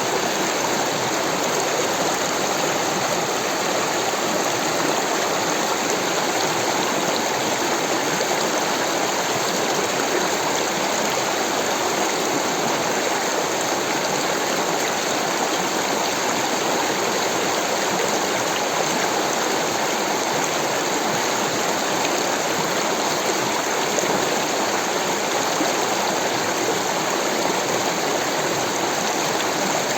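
Rushing water flowing steadily, an even unbroken rush with no changes.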